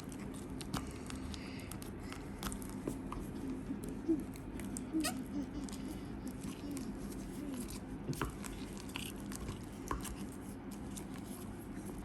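Guar gum and hot water being stirred into slime in a bowl: irregular small clicks and taps over a steady low hum.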